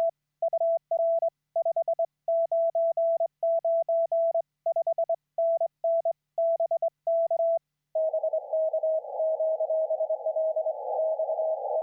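Morse code keyed on a butterfly bug key, heard as a clean transceiver sidetone in dots and dashes with quick runs of dots. About eight seconds in, it gives way to a received CW signal at the same pitch, sounding through band noise and hiss.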